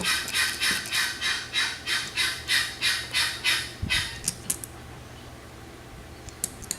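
Guineafowl calling harshly in a rapid, even string of about three calls a second, a racket that stops about four seconds in. A few light clicks follow near the end.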